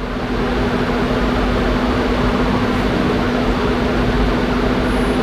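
Electric radiator cooling fan of a 2014 Infiniti QX60 running steadily with a low hum, a little louder after the first second. It runs on its own while the engine computer is being reprogrammed, pulling the battery down to about 11.9 volts.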